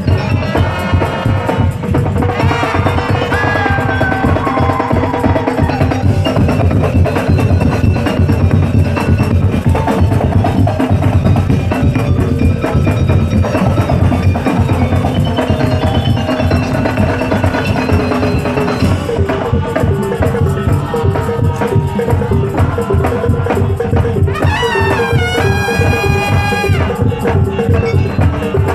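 Madurese daul music played by a parade troupe: dense, fast drumming and wooden percussion under a pitched melodic line, with a sliding melodic run near the end.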